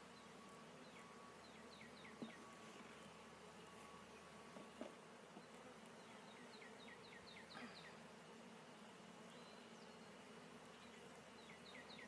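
Faint steady buzzing of honeybees around an opened hive, with a few runs of quick, high chirps.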